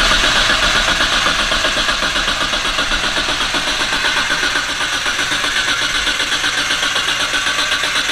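Nissan RB30DET turbocharged straight-six in an R34 Skyline, just started and idling through its full exhaust with a steady, rapid pulse.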